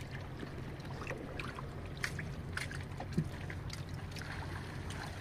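Scattered faint drips and small ticks of water in a small fishing boat, over a steady low hum.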